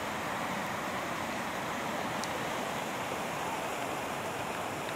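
Mountain stream rushing over rocks: a steady, even sound of flowing water.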